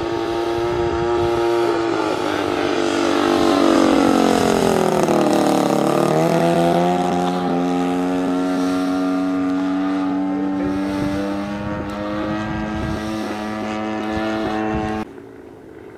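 Engine and propeller of an Aeroworks Extra 260 radio-controlled model airplane in flight. The engine runs loud and steady, its pitch slides down over a few seconds, then holds at a lower, steady pitch. The sound cuts off abruptly near the end.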